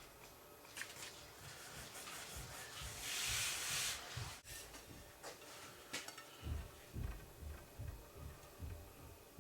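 Faint workshop handling sounds: one scraping rub about a second long a few seconds in, a couple of sharp clicks, then a run of soft low knocks as material is moved about.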